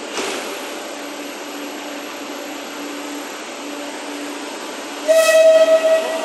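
Madrid Metro Series 8400 train standing at the platform: a short thump near the start, then about five seconds in the train's horn gives one loud, steady blast, the departure signal.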